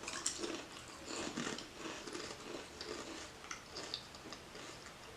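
Two people crunching and chewing ketchup-flavoured potato chips, with irregular crisp crackles.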